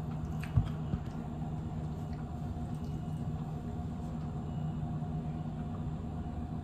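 A steady low hum, with one dull thump about half a second in and a lighter click just after.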